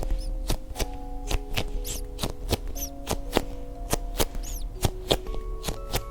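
Background music with held notes, over a run of sharp taps and clicks, about three or four a second, from squishy toys being handled, with a few faint high squeaks.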